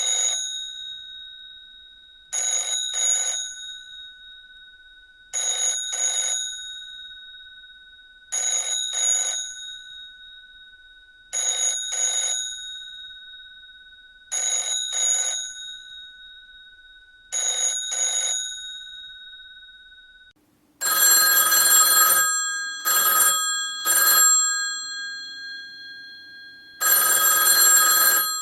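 Telephone bell ringing in double rings that repeat about every three seconds, the bell tone lingering between them. About twenty seconds in it switches to a louder, harsher telephone bell with a different pattern: one long ring followed by two short ones.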